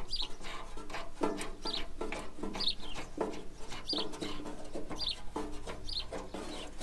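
Birds calling throughout: short, high, falling chirps repeated every half second or so, mixed with lower pitched calls.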